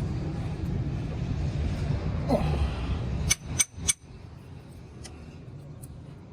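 Steady low rumble, then three sharp metallic clinks in quick succession a little past halfway, after which the rumble drops to a quieter hum.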